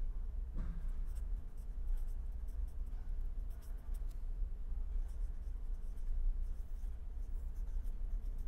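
Pen writing on paper: faint, quick scratching strokes as words are written out, over a steady low hum.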